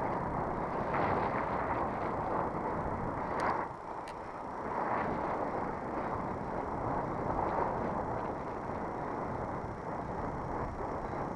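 Wind and road noise picked up by a camera riding on a moving bicycle: a steady rushing hiss, with a couple of light clicks about a third of the way in.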